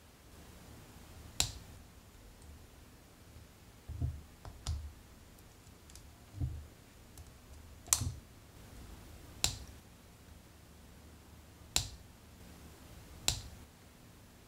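Snap-fit plastic parts of an HG 1/144 Gundam Aerial model kit being pressed together by hand: about six sharp, separate clicks spaced a second or more apart, with a few soft low knocks of the parts being handled in the middle.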